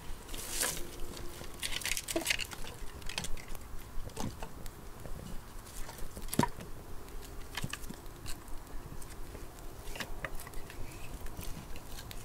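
Dry wood and twigs crackling and snapping in irregular sharp cracks, with one louder snap about six seconds in.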